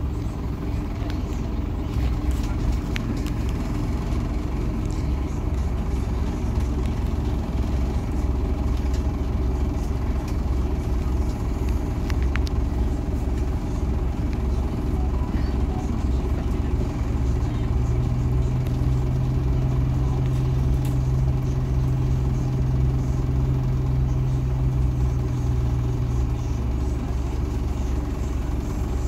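Inside a Scania NewOmnicity city bus: the engine running with a steady low hum. A steady higher drone joins it a little over halfway through and fades out again near the end.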